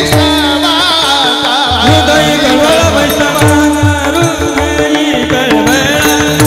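Marathi Varkari kirtan music: a man sings a devotional tune over deep, evenly spaced strokes of a mridang barrel drum and clashing taal hand cymbals keeping time.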